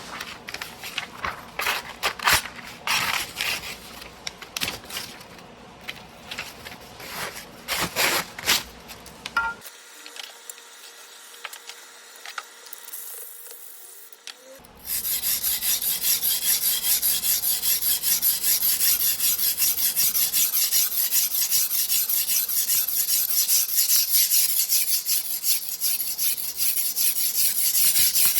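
Single-bevel sujihiki blade being worked on a whetstone: irregular scrapes and taps for the first nine seconds or so, then after a short lull, steady rapid back-and-forth strokes of steel rubbing on the stone.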